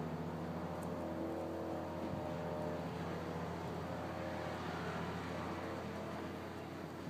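A steady low mechanical hum with several held tones that shift slowly in pitch.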